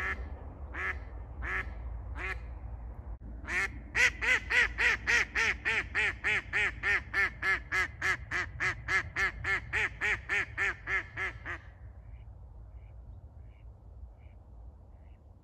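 Hen decoy duck quacking: a few single quacks, then a few seconds in a long fast run of loud quacks, about three a second, gradually fading and stopping near the end. This is the decoy's landing call ("осадка"), meant to bring a circling drake down to the water.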